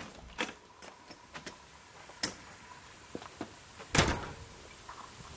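Clicks and knocks of a glass-paned door being opened and gone through, with one loud heavy thump about four seconds in.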